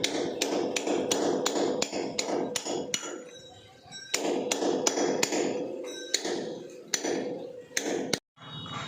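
Repeated hammer blows, about three or four a second, easing off briefly about three seconds in, then resuming before stopping abruptly near the end.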